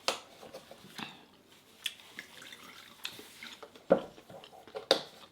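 A person chewing a mouthful of food close to the microphone, with about five sharp, wet mouth clicks and smacks roughly a second apart.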